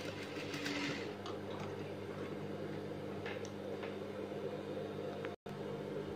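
Industrial sewing machine motor running at idle with a steady low hum, with faint fabric rustling and a few soft clicks as the sewn pouch is drawn off the machine.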